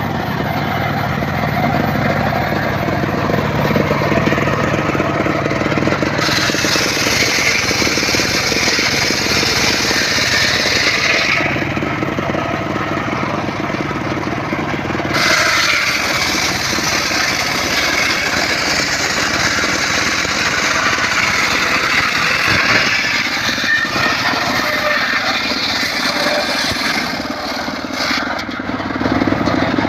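Circular saw running steadily and cutting through mahogany wood twice: a cut of about five seconds starting about six seconds in, then a longer one from about fifteen seconds to near the end, the blade's hiss rising over the machine's running noise during each cut.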